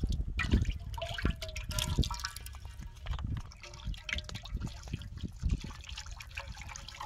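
Cooking oil poured in a thin steady stream into a large aluminium cooking pot, trickling and splashing into the pool of oil collecting at the bottom.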